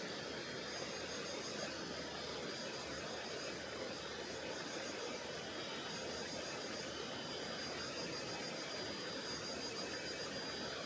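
Tonghou River flowing steadily, an even rushing wash of water, with a faint high pulsing tone over it.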